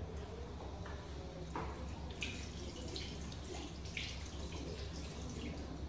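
Hands being washed in water: short, irregular splashes and drips over a steady low hum.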